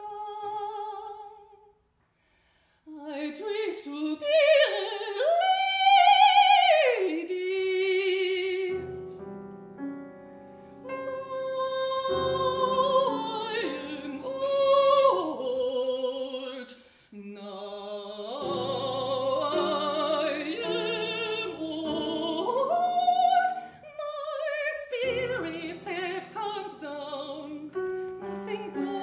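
A soprano singing in operatic style with a wide vibrato: a short unaccompanied phrase, a brief pause about two seconds in, then a line climbing to a loud high note. From about nine seconds in, sustained piano notes sound beneath her voice.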